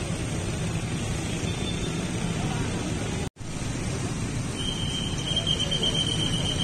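Steady street traffic noise. After a brief cut-out about a third of the way in, a steady high-pitched tone sounds for about three seconds over the traffic.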